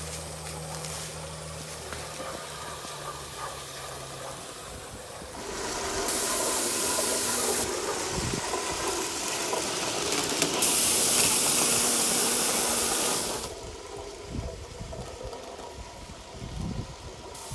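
Gauge 1 live steam locomotive hissing steam loudly as it passes close, in two spells starting about six and about eleven seconds in, each cutting off abruptly. The locomotive is the Accucraft Canadian Pacific Royal Hudson, a butane-fired model.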